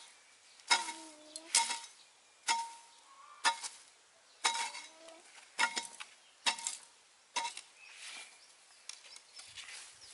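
Metal hoe blade chopping into hard ground about once a second, each stroke a sharp chink with a short metallic ring.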